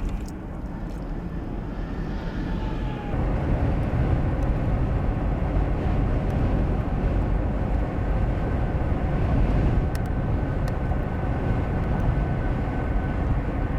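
Vehicle driving on the interstate: a steady low road and wind rumble that grows louder about three seconds in and then holds.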